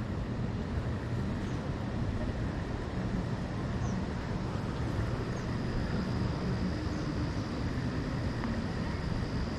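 Steady low rumbling of wind on the microphone, with a faint, thin high steady tone coming in about halfway through.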